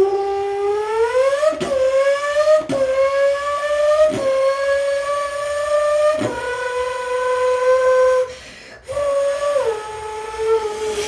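Mouth imitation of a Formula One V8 engine: a sustained buzzing vocal tone that climbs in pitch, dipping briefly at about four gear shifts, then holds, breaks off a little past eight seconds, and steps down in pitch near the end. It echoes in a small bathroom.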